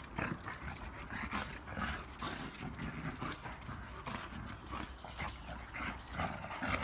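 Two chow chows play-fighting: quiet, irregular scuffling with short dog vocal sounds scattered through.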